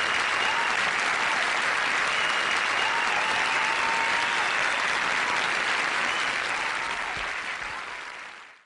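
Audience applauding, a dense steady clapping with a few faint voices in it, fading out near the end.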